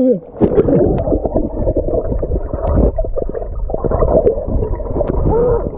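Muffled rumbling and gurgling of sea water and air bubbles heard with the microphone underwater, as a swimmer breathes out through nose and mouth.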